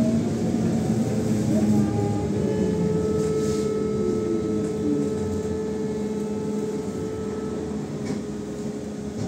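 AKSM-321 trolleybus heard from inside while under way: the electric traction drive whines in several steady tones over a low rumble of the running gear, and one tone glides down about four seconds in.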